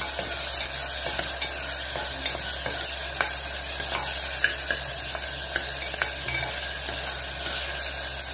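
Sliced onions sizzling in hot oil in an aluminium pressure cooker, stirred with a metal spoon that scrapes and clicks against the pot every second or so.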